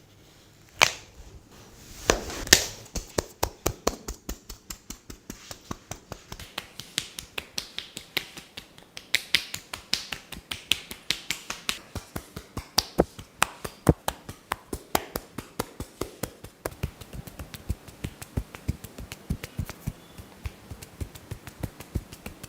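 Rapid run of sharp snapping cracks from a barber's skin-cracking massage, about four a second, after a few louder single cracks at the start.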